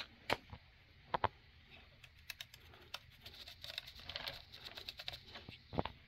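Faint dry scratching of a small brush worked over the metal trucks and underframe of an HO brass model tender during pastel weathering, with a few light clicks and taps from handling the model: sharp ones near the start, about a second in and near the end, and a run of quick small ticks in the middle.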